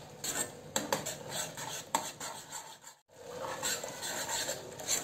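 Metal spoon scraping and knocking against a kadai as a thick besan gravy base is stirred while it cooks. There is a brief gap about three seconds in.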